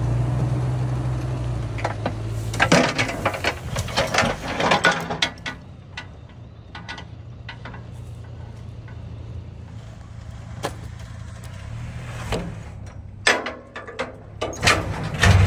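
A vehicle engine running steadily under bursts of irregular metal clanks and rattles, one cluster a few seconds in and another near the end, the last knock the loudest. This is the lime spreader being worked to dump a load of lime that would not come out of its bottom outlet.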